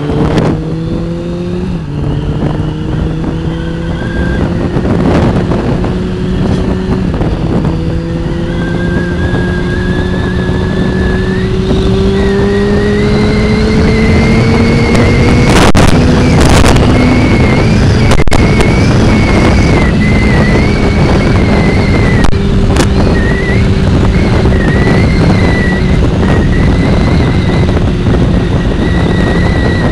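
Motorcycle engine pulling away and accelerating through the gears: its pitch climbs, drops at upshifts about two and seven seconds in, climbs again, then settles into a steady cruise. Heavy wind rush on the microphone runs underneath.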